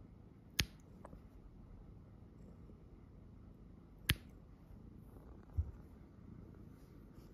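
Pet nail clippers snipping through a cat's claws: two sharp clicks about three and a half seconds apart, with a softer click just after the first. A short, soft low bump follows near the end.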